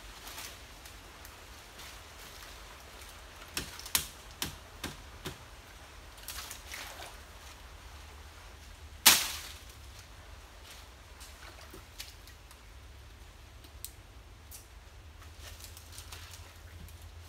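Dry nipa palm fronds and stalks rustling and snapping as they are pulled and broken by hand. A quick run of five sharp cracks comes a few seconds in, then one loud crack about nine seconds in, the loudest sound, followed by a few faint ticks.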